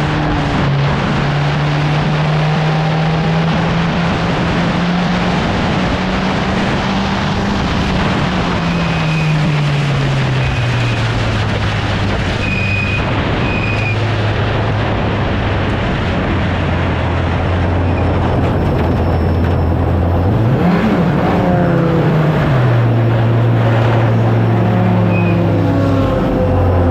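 Onboard sound of a Formula 750 racing car's engine under heavy wind noise. The engine pitch drops about a third of the way in and then stays low and steady as the car slows, with one brief rev blip about three quarters through. The car is slowing after its lower wishbone rose joint has failed.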